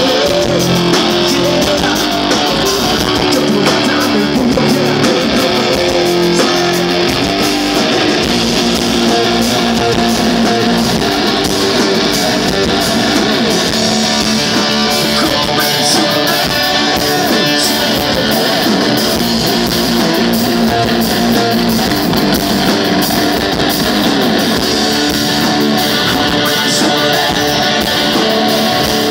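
Live blues-rock music: electric guitar playing a loud instrumental passage without vocals.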